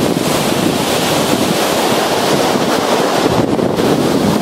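Pacific Ocean surf rushing onto a sand beach, mixed with wind buffeting the microphone: a loud, steady rush of noise.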